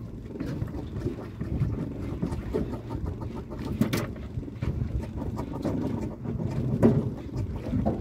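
Steady low rumble of wind and water around a small fishing boat at sea, with a few sharp knocks, about four seconds in and again near the end.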